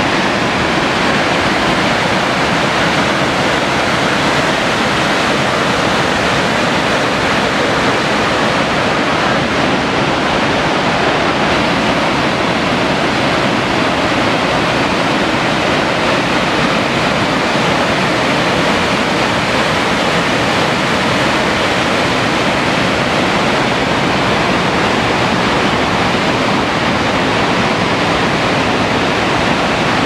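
Dettifoss waterfall, a very large volume of water plunging over the falls, heard close up as a loud, steady, unbroken rush.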